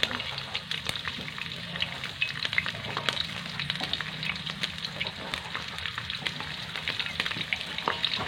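Heavy rain falling, a dense steady crackle of many small drop hits.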